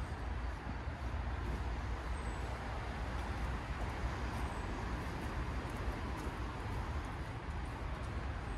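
Steady distant city traffic rumble, with a few faint, short, high chirps over it.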